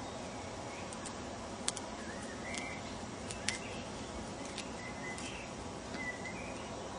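Quiet outdoor ambience: a steady faint hiss with a handful of short bird chirps scattered throughout, and a few small sharp clicks, the clearest about two and three and a half seconds in.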